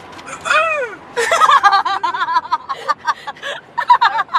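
A woman's gasping hiccup, a squeaky cry falling in pitch, about half a second in, followed by a run of high giggling laughter.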